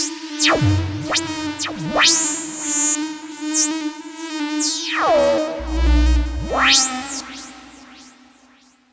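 MFB Dominion 1 analogue synthesizer playing a preset: a held note under fast sweeping pitch glides up and down, pulsing in loudness, with a deep bass note in the middle, then fading out near the end.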